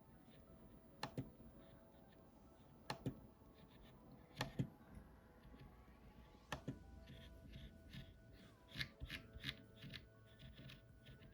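Keystrokes on a SteelSeries Apex 7 mechanical keyboard with red linear switches: single key presses a second or two apart, then a quicker run of several presses near the end.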